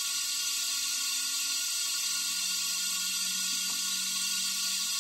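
Steady hiss of compressed air from a leak-down tester on a Kohler CV25 V-twin engine, leaking out of the pressurised cylinder past the intake valve and out through the carburetor. The hiss is the sign of an intake valve that isn't seating, with about 10% leakage.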